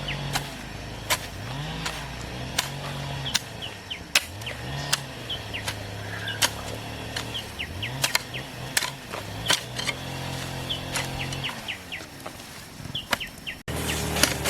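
A small engine running, its pitch rising and falling every few seconds, with frequent sharp knocks and short bird chirps over it.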